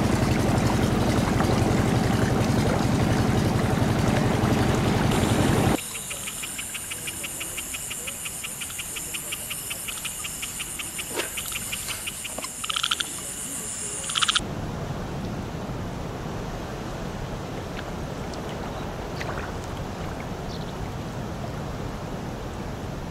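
A boat's motor runs steadily with a low hum as the boat moves along the water, then cuts off suddenly about six seconds in. A chorus of frogs and insects follows, a steady high trill with a faster pulsed call over it, and stops abruptly about fourteen seconds in. A soft, even wash of wind and water remains.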